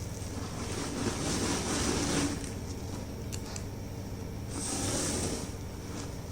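A rolling pin crushing gym chalk chunks, with gritty crunching in two long passes and a few sharp crackles between them.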